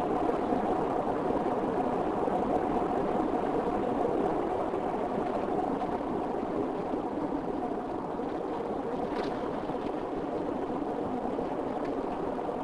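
Steady road and engine noise from a car driving, with a faint steady hum running through it and one faint click about nine seconds in.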